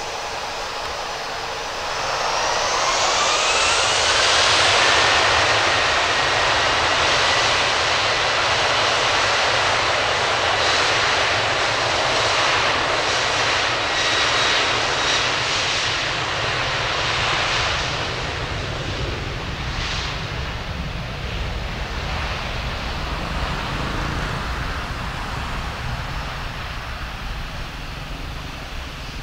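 Boeing 737-900ER's CFM56-7B turbofan engines spooling up to takeoff thrust about two seconds in, a rising whine over the roar, then a loud steady roar as the jet accelerates down the runway, fading gradually in the last third as it pulls away.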